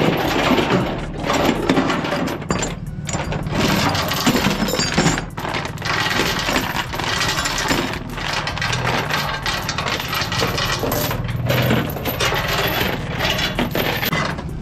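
Steel transport chain clanking and rattling as it is pulled loose and heaped onto the aluminum deck of a stepdeck trailer, together with a ratchet chain binder: a continuous jumble of metal-on-metal clinks and jingles.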